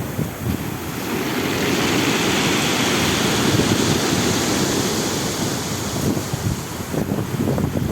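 Stormy sea surf churning and washing in, a wave surging up about a second and a half in, with wind buffeting the microphone.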